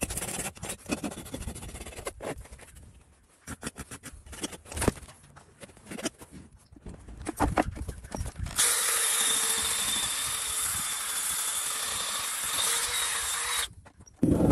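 Farrier's rasp scraping a horse's hoof in irregular strokes. About halfway through comes a steady power-tool whir lasting about five seconds, which cuts off abruptly.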